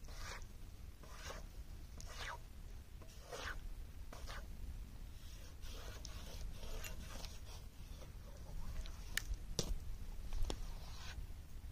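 A stick scraping and stirring wet clay on a metal tray drying over a fire, in short strokes about once a second, with a few sharp clicks near the end over a low steady rumble.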